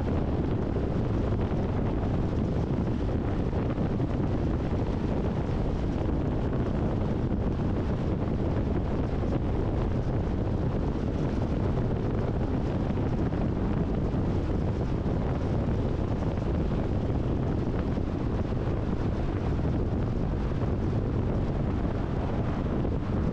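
Steady rumble of tyre and wind noise from a car driving at highway speed, with no changes or separate events.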